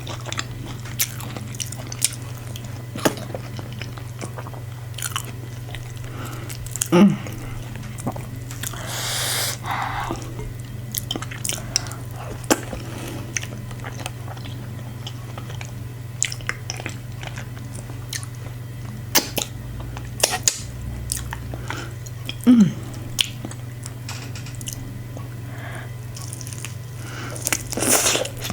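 Close-miked mouth sounds of eating fufu and assorted meats: wet chewing and lip smacks, a stream of small irregular clicks over a steady low hum. Twice, a louder short sound falls in pitch.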